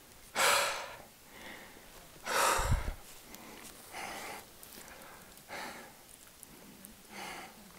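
A person breathing hard while hiking uphill: about five audible breaths, one every second and a half or so, the one about two and a half seconds in the loudest.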